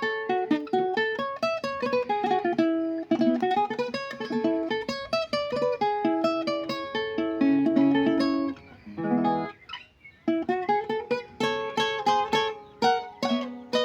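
Requinto, a small high-tuned guitar, played solo in quick runs of plucked single notes and chords. There is a brief pause about nine to ten seconds in before the runs start again.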